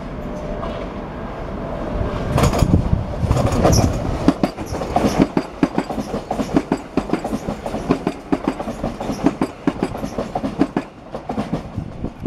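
Gatwick Express Class 442 electric train passing through at speed. Its rumble grows louder about two seconds in, then the wheels clack steadily over the track as the coaches go by.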